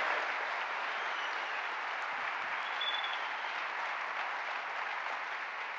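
A large congregation applauding, a dense clapping that fades slowly toward the end.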